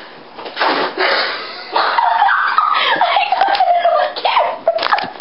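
A person's voice: a few short breathy bursts, then a long, high-pitched vocal sound that wavers up and down for a couple of seconds.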